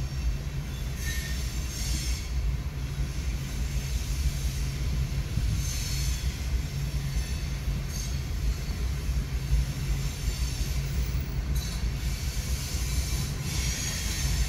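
Freight train of coal hopper cars rolling past with a steady low rumble of wheels on rail. Short high-pitched wheel squeals come and go several times.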